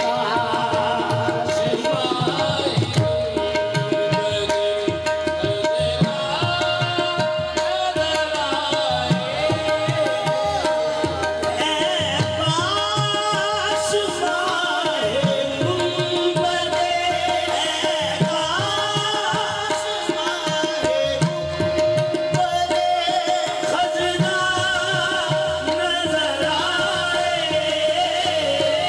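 Qawwali music between sung verses: tabla drumming under a melody line, over a steady held drone note.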